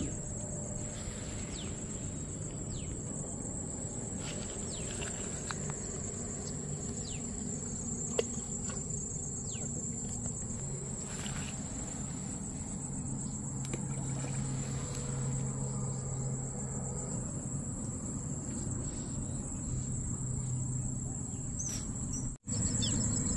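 Insects chirring in one steady high-pitched drone, with a few faint short chirps over it.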